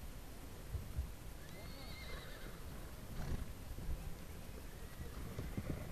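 Icelandic horse whinnying, one wavering high call about a second and a half in, over scattered knocks of hooves from a milling herd.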